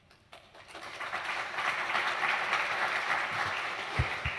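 Audience applauding, building up over the first second and tapering off near the end. A couple of short low thumps come about four seconds in.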